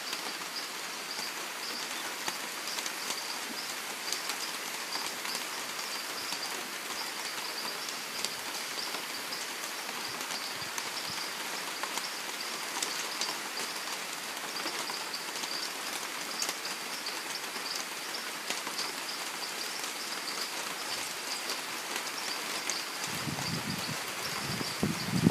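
Steady rain falling on rainforest foliage, with scattered drips and a constant high-pitched whine running under it. A low rumble comes in near the end.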